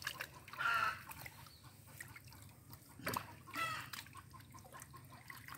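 Water splashing and sloshing as large chital (clown knifefish) are handled in a net in shallow water, with a sharp splash about three seconds in. A bird calls twice in the background, near the start and again a little before four seconds.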